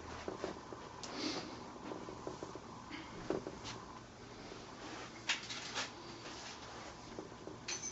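Faint, scattered clicks and light metallic knocks of hand tools being handled while a large Allen key is looked for, the clearest a few seconds apart.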